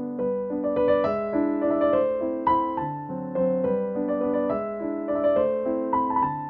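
Background instrumental music: a melody of held notes over chords, moving from note to note every half second or so.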